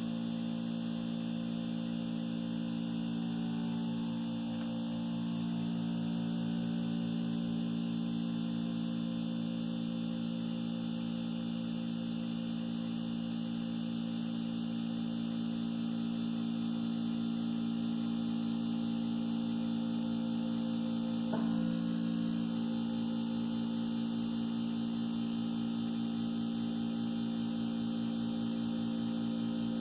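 Harvest Right freeze dryer's refrigeration compressor running with a steady electrical hum and a faint fast pulsing under it. A brief click about two-thirds of the way through.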